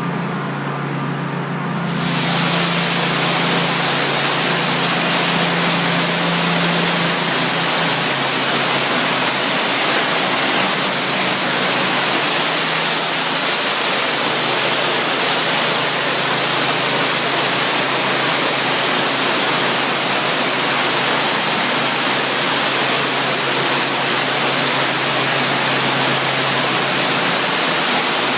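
Pressure washer's engine running, then a little under two seconds in the high-pressure water spray cuts in with a sudden, loud, steady hiss that carries on over the engine's hum.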